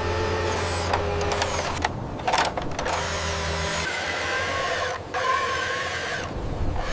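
Small electric motors of toy construction machinery whirring, with mechanical clicking and clatter about two seconds in; a steady low hum under the whirr stops about four seconds in.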